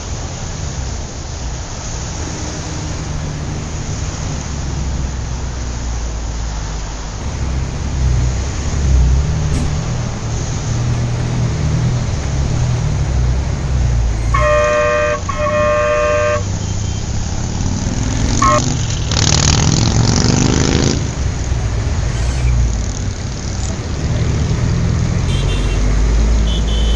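Road traffic heard from a moving vehicle: a steady low engine and road rumble, with two short horn honks about halfway through. A few seconds later comes a louder burst of engine noise that rises in pitch.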